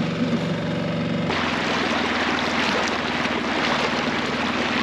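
Dinghy outboard motor running steadily. About a second in, a loud hiss of rushing, splashing water takes over as the dinghy moves through the water, with the motor hum still underneath.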